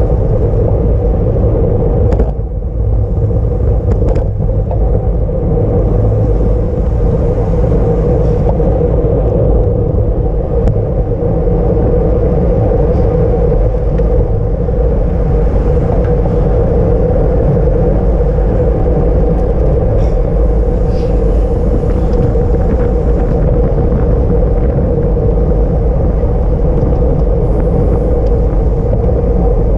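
Steady wind rumble on the microphone of a camera riding on a racing bicycle at speed, with a constant hum underneath and a few faint ticks.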